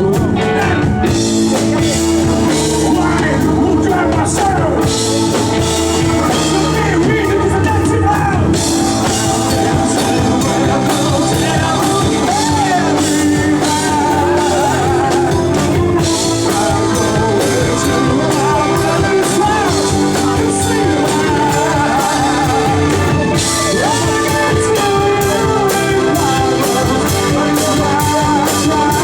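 A rock band playing live with a singer: electric guitars, bass and drum kit with cymbals, steady and loud throughout.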